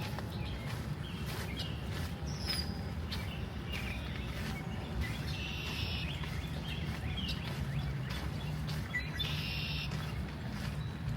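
Steady rain ambience in a forest with small birds chirping on and off, short calls scattered through, over a low, even wash of noise.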